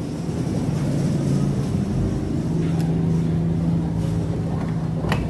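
A motor vehicle engine running steadily with a low hum, and one sharp click near the end.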